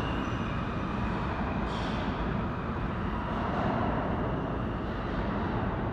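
New York City subway train rumbling through the tunnel out of sight, a steady noise that eases slightly near the end.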